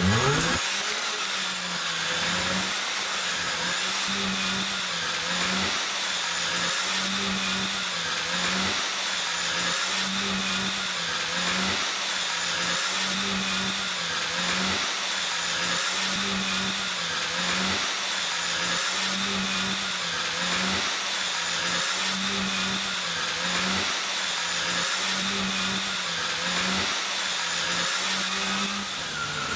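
Steady whirring machine noise with a low hum that wavers up and down about once a second.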